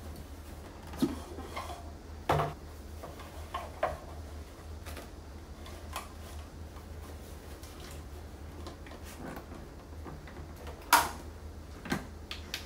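Clear plastic food storage containers being handled on a countertop: scattered knocks and clicks of boxes and lids. The loudest is a sharp click about eleven seconds in, as a push-button lid is pressed shut. A low steady hum runs underneath.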